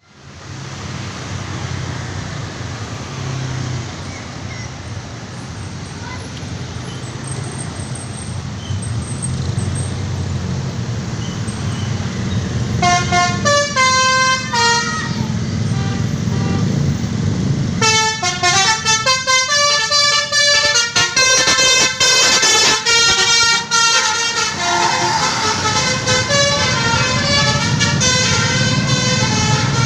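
A vehicle's engine runs with a low rumble, then a multi-tone musical horn of the telolet or basuri kind plays a short tune of stepping notes about 13 seconds in. From about 18 seconds on it plays a longer run of tune after tune.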